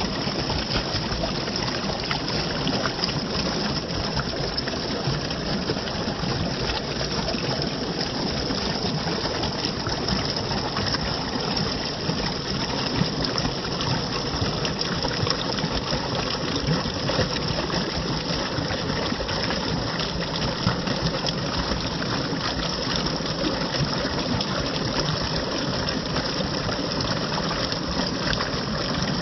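Running water gushing steadily, an even rushing noise.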